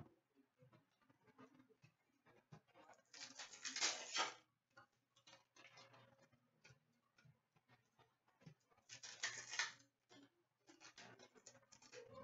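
A stack of trading cards handled by hand, with two short rustling slides of cards against each other about five seconds apart and faint light clicks and taps in between.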